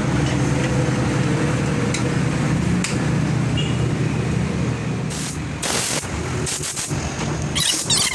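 Paint spray gun with its air compressor running steadily underneath, giving several short hissing bursts of spray from about five seconds in while parts are being spray-painted.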